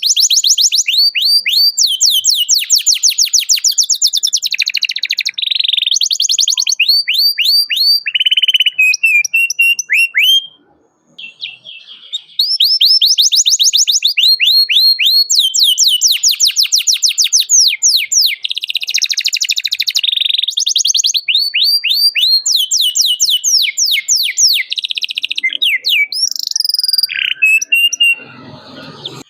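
Domestic canary singing: long, rapid trills of repeated falling notes with chirps between them, breaking off briefly about ten seconds in and then resuming. A short low noise comes in near the end.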